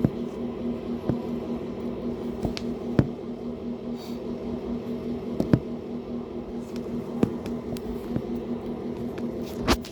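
Wet clicks and squishes from a person's runny, snot-filled nose, about nine sharp ones at uneven intervals, over a steady low hum.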